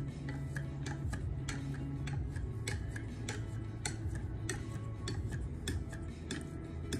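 Quick light ticks, about two or three a second, of a 6-micron (3000-grit) sharpening stone on a KME guided sharpener being stroked back and forth along a knife edge, over a steady low hum.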